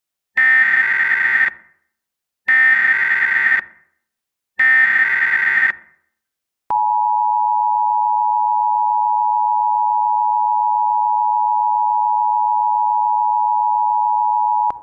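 Three Emergency Alert System SAME header data bursts, each a raspy electronic screech about a second long, followed by the two-tone EAS attention signal (853 and 960 Hz) held steadily for about eight seconds. Together they announce the start of a new alert message.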